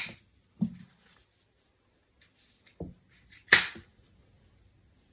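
Scissors snipping through the frayed ends of braided denim seams: two sharp snips, at the start and about three and a half seconds in, with softer knocks and fabric rustling in between.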